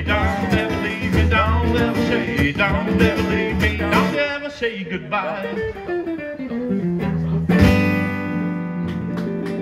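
Live blues guitar duo: an electric archtop guitar plays lead lines with string bends over a strummed acoustic guitar, then walks down in a falling run to a loud final chord about seven and a half seconds in that rings on.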